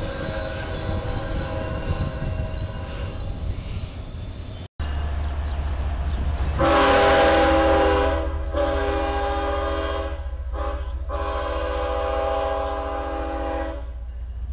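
Train cars roll past with a high squeal repeating about twice a second, then after an abrupt cut a diesel locomotive rumbles and sounds its multi-chime air horn in a long, long, short, long pattern, the standard grade-crossing warning.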